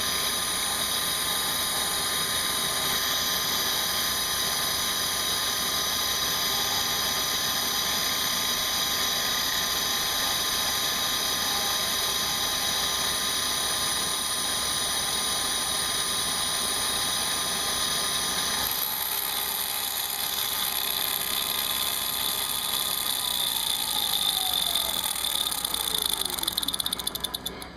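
CNC milling machine running with a steady, high-pitched whine. About two-thirds of the way through the sound shifts, then a falling tone glides down, and the machine stops near the end.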